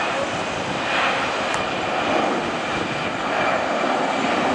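Airbus A320-214's twin CFM56 turbofan engines at takeoff thrust during the takeoff roll: a steady rushing jet noise that swells slightly now and then.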